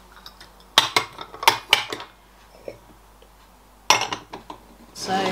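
Denby stoneware cups and saucers clinking against each other as they are set down and stacked. A flurry of clinks comes about a second in, and a second flurry comes near the end.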